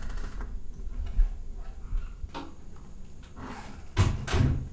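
Interior door being pushed shut, a heavy thud followed by a second knock as it latches near the end. A few faint knocks and bumps come before it.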